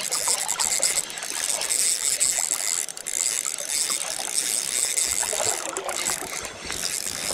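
Spinning reel being wound in against a hooked trout, its gears whirring and clicking, over the steady rush of river water.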